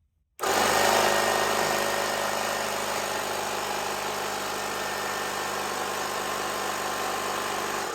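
Portable electric air compressor running steadily as it pumps air into a tire to seat the bead on the rim. It starts suddenly just after the start and cuts off just before the end.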